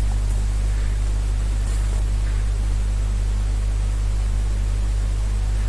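Steady electrical mains hum with a constant hiss over it, unchanging throughout.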